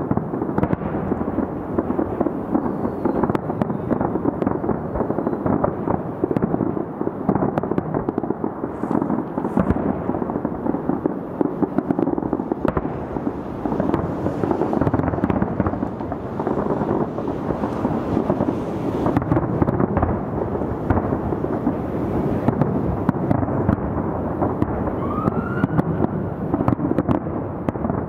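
Large fireworks display heard from about 2 km away: shell bursts come so thick that they merge into a continuous rolling rumble and crackle. The sound is dulled by the distance, with little in the high range.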